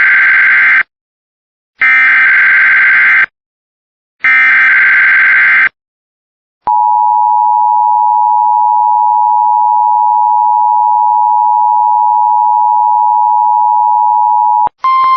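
Emergency Alert System test signal: three short bursts of the SAME digital header, a harsh buzzy data screech, followed by a steady electronic attention tone held for about eight seconds before it cuts off.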